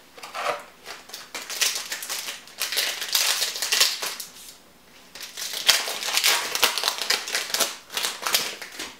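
Yu-Gi-Oh! trading cards and a booster-pack wrapper being handled: a dense run of rapid crackles and clicks, easing off briefly about four seconds in before picking up again.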